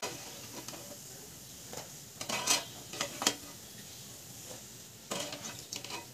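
Steel slotted skimmer clinking and scraping against a kadhai while lifting fried shakarpara out of hot oil, over a soft fizz of the oil. Sharp clinks come about two and a half and three seconds in, and again near the end.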